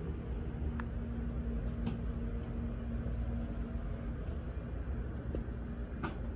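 Window air conditioner running with a steady low hum, with a few light clicks over it.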